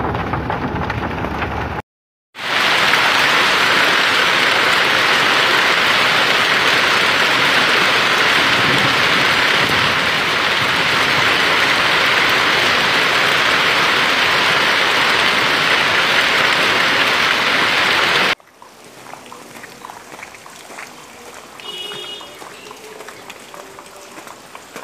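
Heavy hail pelting down: a loud, dense, steady hiss that cuts off suddenly. After that, quieter footsteps crunching and splashing through hail-covered slush.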